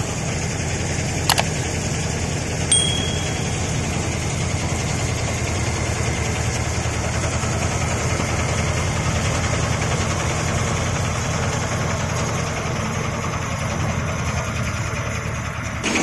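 Hindustan grain threshing machine running steadily while straw is fed into it, giving an even, low mechanical drone. There is one sharp click about a second in and a brief high tone shortly after.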